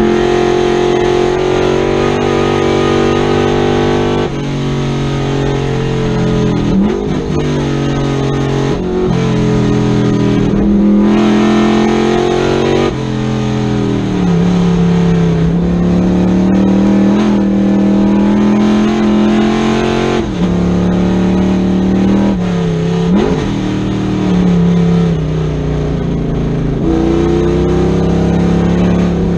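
Big-block V8 of a 1965 Chevrolet Corvette Stingray racing at full throttle, heard from inside the cockpit. The engine note rises and falls away several times as the car accelerates, shifts and slows for corners.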